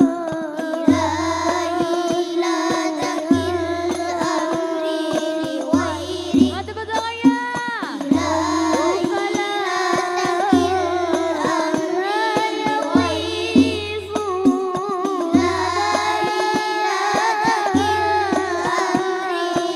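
Children singing Islamic sholawat (Al Banjari) together, accompanied by Al Banjari frame drums (terbang): a deep bass stroke about every two and a half seconds with lighter hand strikes between. About seven seconds in, the voice sweeps up and down in an ornamented run.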